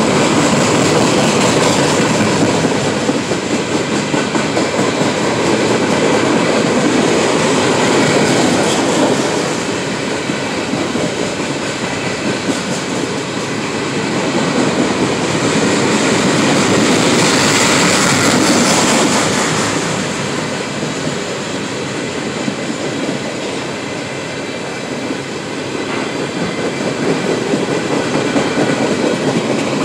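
Freight cars rolling past close by: a steady rumble and clatter of steel wheels on the rails that swells and eases as the cars go by.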